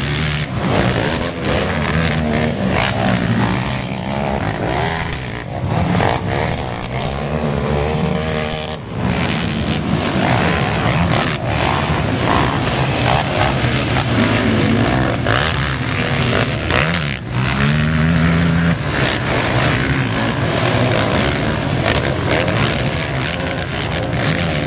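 Several racing ATV engines revving hard around a dirt track. The pitch rises and falls again and again as the riders accelerate and back off over the jumps.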